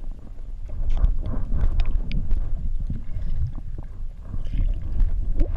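Water sloshing and splashing close to an action camera, with a heavy low rumble and scattered short splashes.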